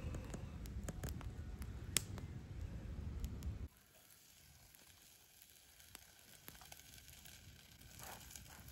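Wood campfire crackling with scattered sharp pops over a low rumble. About three and a half seconds in, the sound drops abruptly to faint, sparse crackling.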